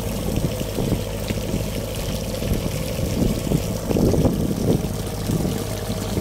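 A stream of water pouring from an outlet in a boat's hull and splashing onto the sea, over a steady motor hum from the boat.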